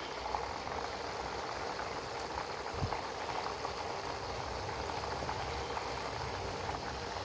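Hot oil sizzling and bubbling steadily as skewered chicken tikka kebabs deep-fry in a pan, with a single light knock about three seconds in.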